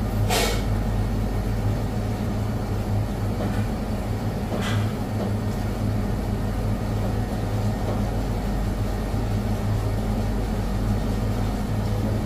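Steady low machine hum of commercial kitchen equipment, with two brief swishes, one at the start and one about four and a half seconds in.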